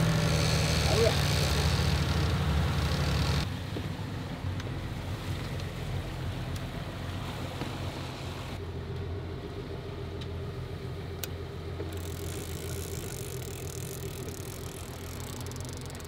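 Boat engine running steadily as the boat trolls, with a low hum that drops noticeably quieter about three and a half seconds in.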